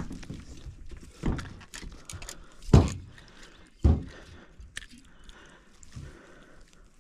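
A crappie flopping and thumping against the deck of an aluminum boat, giving several dull knocks. The loudest comes nearly three seconds in and another about a second later.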